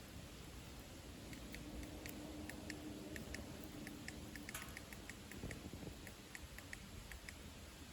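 Wood fire burning in a secondary-combustion stove, giving faint, irregular small crackles and pops. A faint low hum runs for a couple of seconds in the middle.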